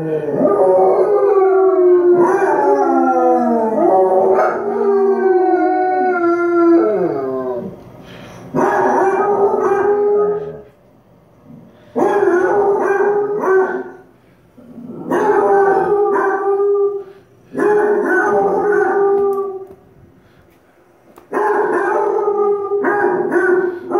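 Dogs howling: basset hounds howling from a TV speaker, with a doodle howling along. At first several long howls overlap and slide down in pitch; after about eight seconds come separate howls of a second or two each, with short pauses between them.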